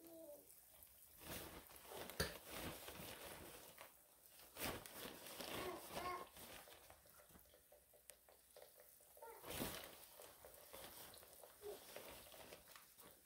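Breaded fish fillets frying in hot oil in a pan: a faint, steady sizzle with irregular crackles as more fillets are laid in.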